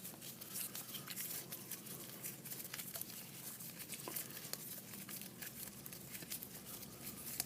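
Faint, scattered clicks and light scraping of a screwdriver backing out the grip screws on a 1911 pistol frame.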